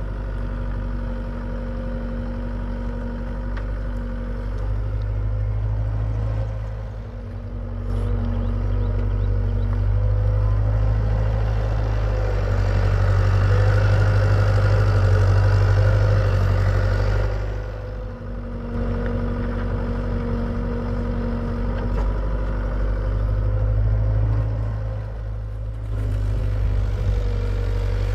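Hitachi EX75UR excavator's diesel engine running under changing load as the machine works, swelling loudest around the middle and easing off briefly twice. A steady hum sits over the engine note, coming and going in stretches.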